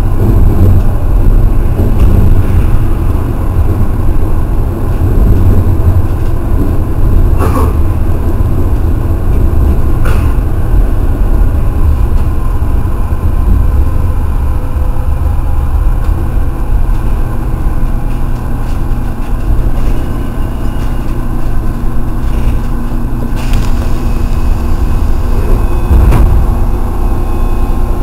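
Sanyo 5000 series electric train running through a tunnel, heard from inside the car: a loud, steady low rumble of the running gear, with a few short sharp clicks.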